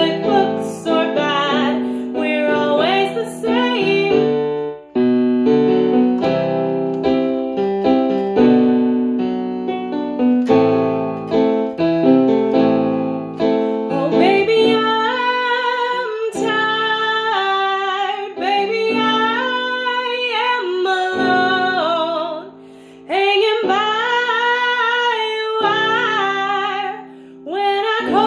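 A woman singing to piano accompaniment. Chordal piano dominates the first half, and her voice comes through more strongly in the second half, with two brief pauses near the end.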